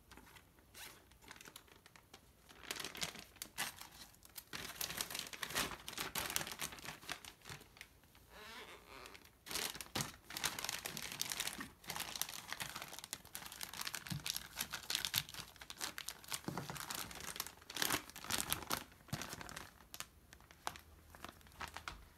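Ziploc gallon-sized plastic freezer bag crinkling and rustling in irregular bursts as it is opened and pressed flat by hand over a wrapped sandwich to squeeze out the air.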